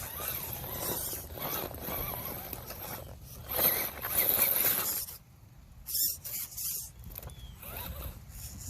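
A small electric RC rock crawler driving and climbing, its motor and drivetrain whirring in uneven bursts as it starts and stops, with the tyres scrabbling on the surface. The loudest stretch comes a few seconds in, followed by a brief lull and then short bursts again.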